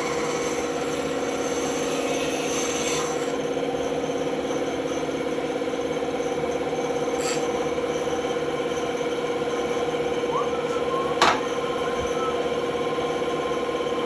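Woodworking power tool motor running with a steady hum, with a scratchy wood-cutting or sanding noise for about the first three seconds and a single sharp click about eleven seconds in.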